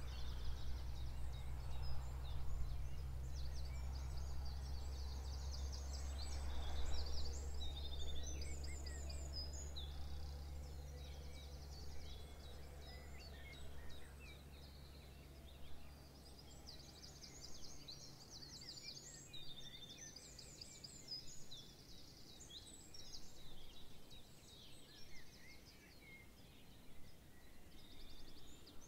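Songbirds chirping and singing, many short calls and trills overlapping. Beneath them runs a low steady rumble that fades out about two-thirds of the way through.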